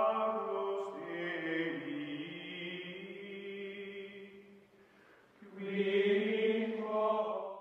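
Chant-like choral music of sustained voices holding long notes. It fades low a little over four seconds in, swells back about five and a half seconds in with another held chord, and cuts off abruptly at the end.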